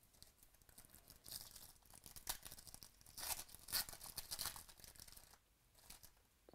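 Foil trading-card pack wrapper being torn open and crinkled by hand. It is a faint, crackly rustle that comes and goes for about five seconds, loudest in the middle, then stops.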